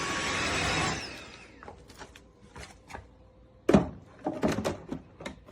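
A Tineco Floor ONE S7 PRO wet-dry floor washer's motor runs and then shuts down about a second in, its whine falling away, just after its low clean-water-tank warning. It is followed by a loud knock and several lighter clicks, which fit the machine being handled and set into its charging base.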